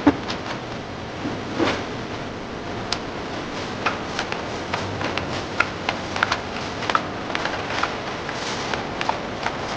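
Factory machinery: a steady hum and hiss with irregular light clicks and clacks scattered through it.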